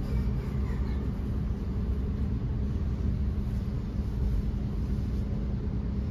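Thameslink electric passenger train running, heard from inside the carriage: a steady low rumble with a constant hum.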